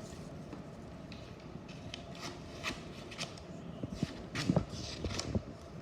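Sheets of paper and card being handled and rubbed against a surface, with scattered light taps and crinkles that get louder about four seconds in.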